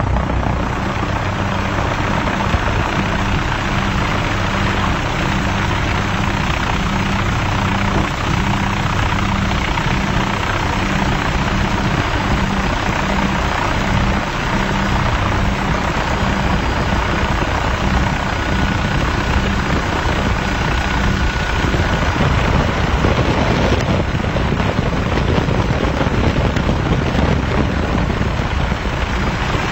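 Helicopter in flight: loud, steady engine and rotor noise with an even, low rotor beat.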